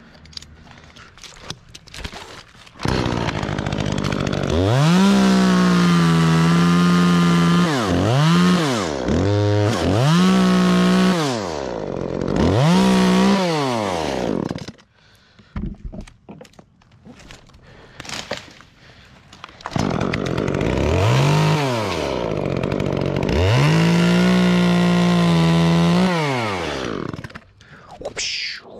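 Chainsaw revving to full throttle and holding for a few seconds at a time, then easing back between cuts, as it cuts limbs off a pine. There are two spells of cutting: the first starts about three seconds in, and the second starts about twenty seconds in after a quieter lull. The second spell dies away near the end.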